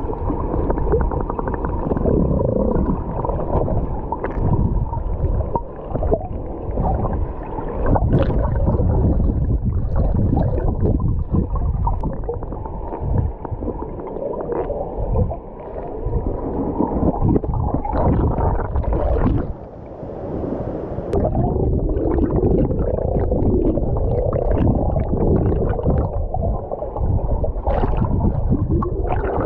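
Waterfall rushing and churning close by, a loud low-pitched rumble that wavers in strength and dips briefly a couple of times.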